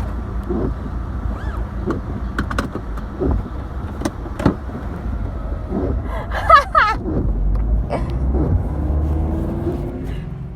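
Car cabin noise while driving: a steady low engine and road rumble, with a few scattered clicks and knocks and a brief higher wavering sound about six and a half seconds in.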